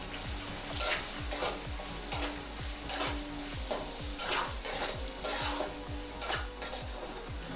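Chopped onions and curry leaves frying in hot groundnut oil, sizzling steadily while they are stirred around the pan, with a scrape at each stroke.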